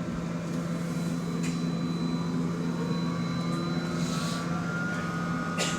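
Bus interior with the engine's steady low drone. Over it, a thin whine from behind the seats glides up in pitch from about two seconds in and then holds level. The passenger cannot identify this noise, which keeps changing pitch. A few light ticks come near the end.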